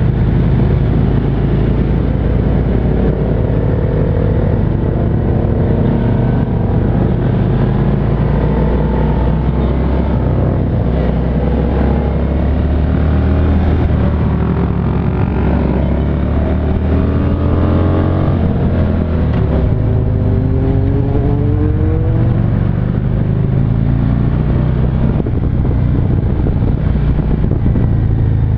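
Onboard sound of a Harley-Davidson touring motorcycle's V-twin engine running under way. The low engine note is steady, with the pitch rising a few times through the middle as it accelerates.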